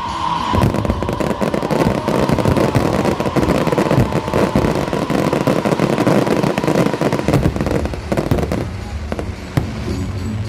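Fireworks going off in a dense, rapid crackle of pops, with a steady whistling tone held over most of it; the crackle thins out near the end.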